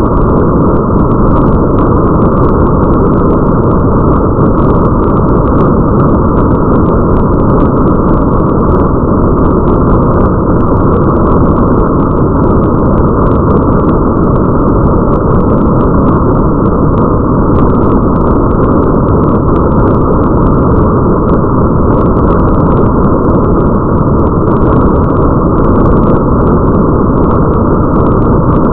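Steady, loud, muffled rain ambience: an even, dull rushing with no treble, and faint scattered droplet ticks above it.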